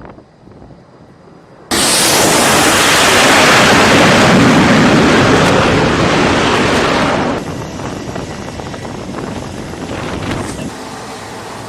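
Jet aircraft engine noise on a carrier flight deck: a very loud roar that starts abruptly about two seconds in, holds for about five seconds, then drops to a lower steady rush.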